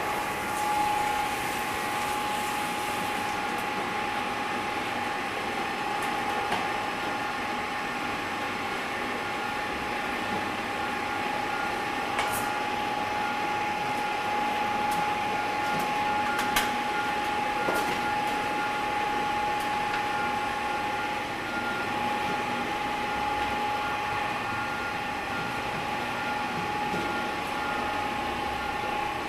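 Dual paddle mixer running, its two 3 hp drives turning stainless steel paddles through a load of plastic balls: a steady machine whine with a few sharp clicks around the middle.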